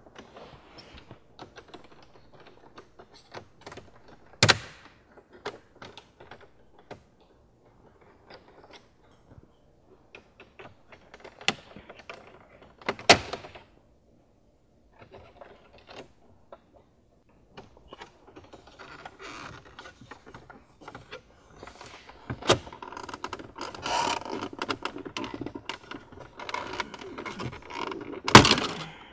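Plastic dash trim of a B8.5 Audi S4 being pried loose by hand: five or so sharp snaps as its pop clips let go, with rubbing and creaking of the plastic panel in between, busier near the end.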